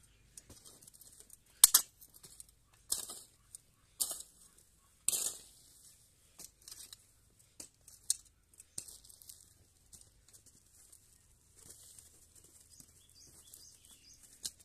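Short-handled hoe digging and scraping into a heap of moist manure, with crumbly soil rustle. Four sharp strikes come about a second apart in the first five seconds, followed by softer, scattered scrapes.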